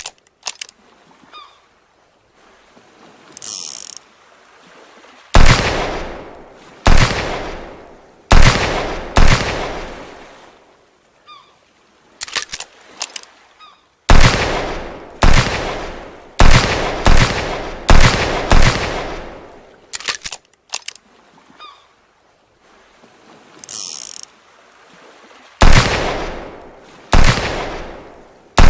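Revolver gunshot sound effects, fired one after another at uneven intervals, some in quick pairs, each shot sharp and loud with a long echoing tail that fades over about a second.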